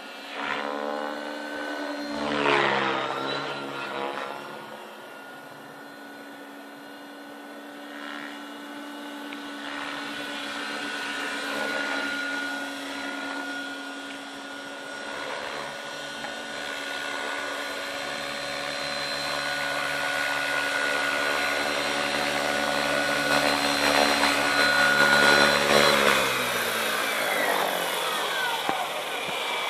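Align T-Rex 550 electric RC helicopter in flight: the motor and rotor whine steadily, with a loud rising-and-falling pass about two seconds in. The sound grows louder as the helicopter comes close, then about 26 seconds in the pitch drops as the rotor spools down after landing.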